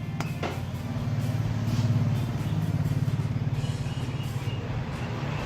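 Suzuki Baleno 1.6-litre four-cylinder engine running at idle, a steady rapid low pulsing that grows louder, with a couple of sharp clicks just after the start. It is running after the valve cover gasket and spark plug tube seals have been replaced and the plugs refitted.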